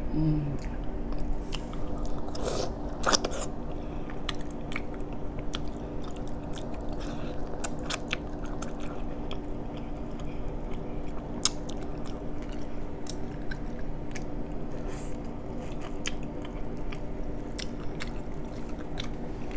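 Close-up chewing of sauced corn on the cob, with many short crunchy clicks of the kernels, over a steady low hum.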